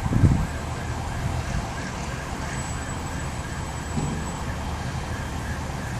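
Distant emergency-vehicle siren wailing in a repeating cycle over the low rumble of slow-moving traffic, with a brief low thump right at the start.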